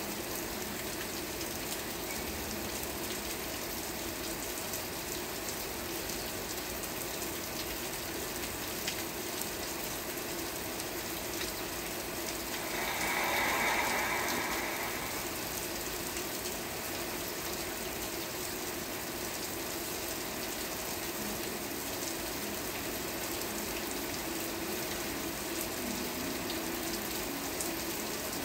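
Steady rain falling, an even continuous hiss of drops, with a brief louder swell about halfway through.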